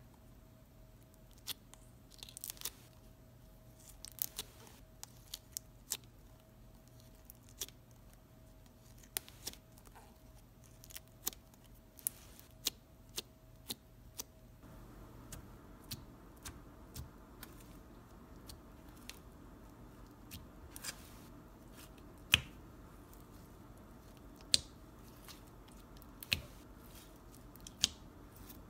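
Clear glitter slime being poked and squished by fingers, giving irregular sharp clicks and pops.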